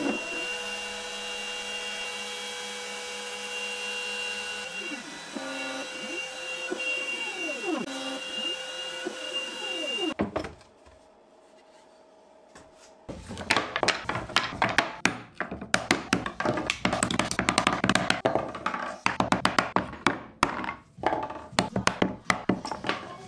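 CNC router cutting a curved slot in plywood: a steady spindle whine with tones that glide up and down as the machine moves, stopping about ten seconds in. After a short near-quiet pause, a chisel is struck many times with a mallet, chopping through the holding tabs in the plywood in a run of sharp knocks.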